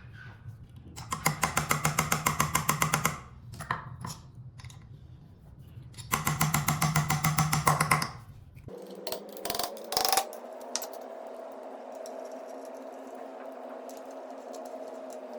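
Rapid light hammer taps on the scooter's folding latch, about six a second in two runs of roughly two seconds each, mounting a new safety buckle. About two-thirds of the way through, a steady hum of several tones sets in.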